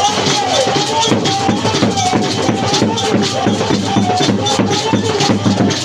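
Loud music with a steady, quick percussion beat and a sung or played melody over it.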